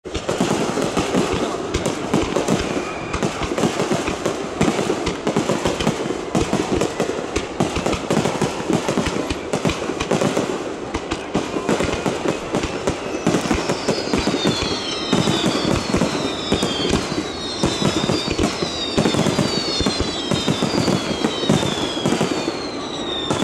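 Fireworks display: a dense barrage of aerial shells bursting, with rapid booms and crackling that never let up. From about halfway a run of high whistles joins in, about one a second, each falling in pitch.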